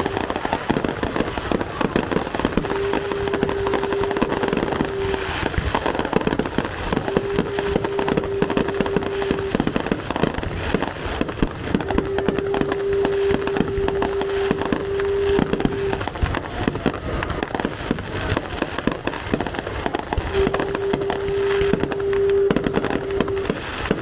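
Aerial fireworks shells bursting in rapid, continuous succession, a dense barrage of bangs. A steady low held tone comes and goes several times behind the bangs, each time for two to four seconds.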